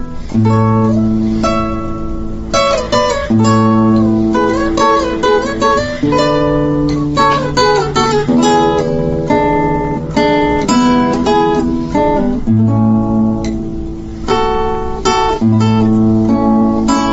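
Background music: plucked chords with a deep bass note under each, changing every second or two.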